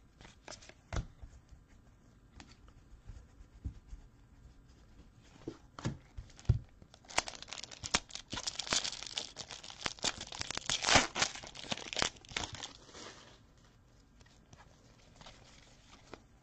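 Foil trading-card pack wrapper being torn open and crinkled, in a dense run from about 7 to 13 seconds in, with a few light taps and ticks before it.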